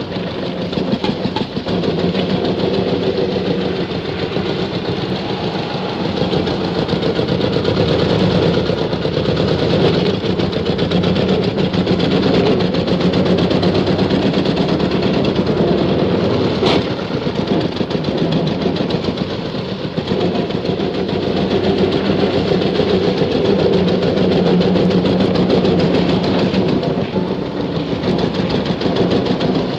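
Old car's engine running steadily while it is driven, its level rising and falling gently, with one sharp click partway through.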